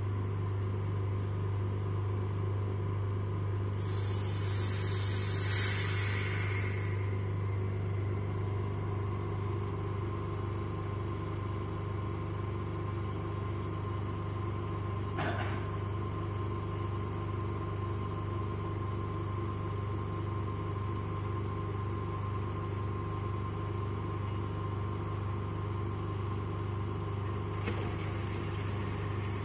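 Steady hum of the rotary evaporator's vacuum system running. About four seconds in, a loud hiss lasting some three seconds: air rushing in through the opened valve as the vacuum is released toward atmospheric pressure.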